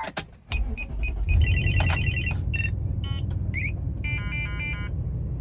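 2007 Infiniti QX56's 5.6-litre V8 being started: a click, then the engine catches about a second in and settles into a steady idle. Over it, the dashboard sounds a series of high electronic beeps and chimes.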